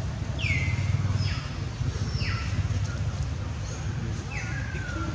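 Bird calls: about four short falling whistles, spread over the few seconds, over a steady low rumble.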